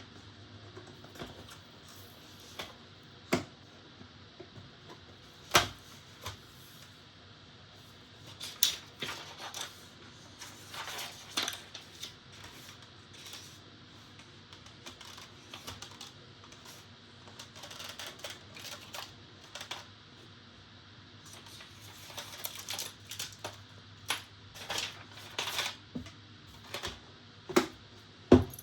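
PC fan and case parts being handled: scattered clicks and knocks of plastic and metal, with busier stretches of clicking and rustling, and a sharp knock near the end.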